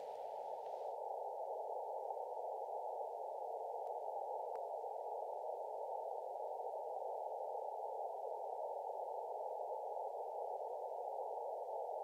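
Shortwave receiver band noise heard through a narrow CW filter: a steady, even hiss with no Morse signal keyed into it. A faint tick about four and a half seconds in.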